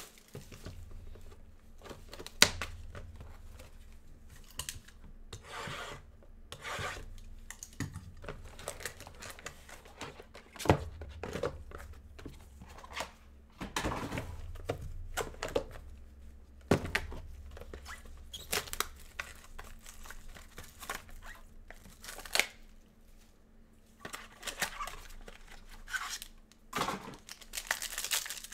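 Topps Museum Collection baseball card boxes and packs being torn open and handled by gloved hands: irregular tearing and crinkling of wrapping, with scattered sharp clicks and knocks of cardboard.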